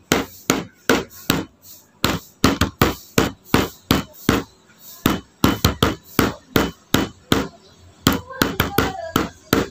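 A quick, irregular series of sharp knocks or hits, about two to four a second, with a brief voice-like sound near the end.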